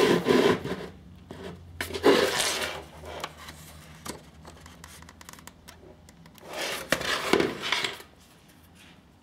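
Hands handling a helmet and a plastic GoPro curved adhesive mount, rubbing and scraping the mount against the helmet's hard shell. It comes in three bursts with a few sharp plastic clicks between them.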